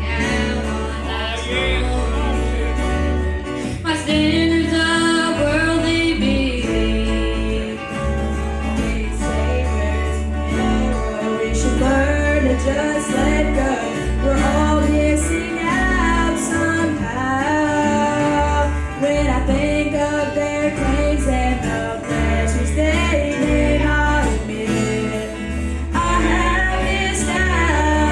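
Live gospel music: singing over a backing band with a bass line that moves every second or two.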